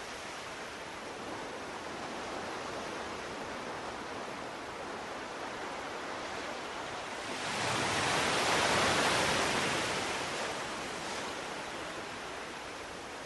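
Steady rushing noise, like surf or hiss, that swells louder for about two seconds about two thirds of the way in, then settles back.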